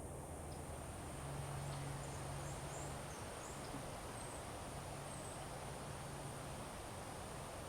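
Steady outdoor background noise with a faint low hum that comes and goes and a thin, steady high tone. A few short high chirps come about one to three seconds in.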